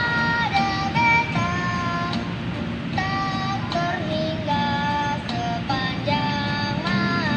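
Music: a song with a high sung melody of held notes stepping from pitch to pitch over a steady backing.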